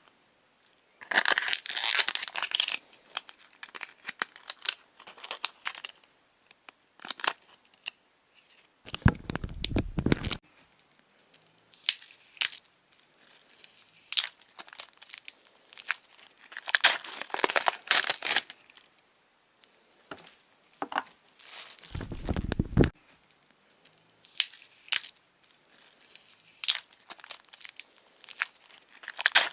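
Crinkling and tearing of thin material handled by hand, coming in irregular bursts, with two low, second-long thuds about a third of the way in and again about three quarters of the way through.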